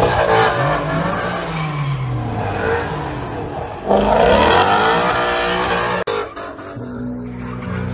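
Ford Mustang engine revving hard in a burnout, its pitch rising and falling with the throttle, over the hiss of spinning tyres. About six seconds in the sound cuts off abruptly and a lower, steadier engine note carries on.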